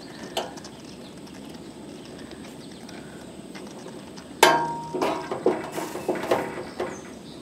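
Metal spoon knocking and scraping against a stainless steel pan of dye-soaked wool: a faint click early on, then about halfway through a sharp clank with a short metallic ring, followed by several lighter, irregular clinks.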